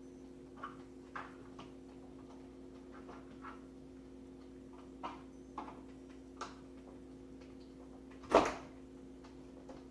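Light scattered clicks and taps of hands and a tool working on a microwave oven door's plastic trim, with one loud knock a little past eight seconds in, over a steady hum.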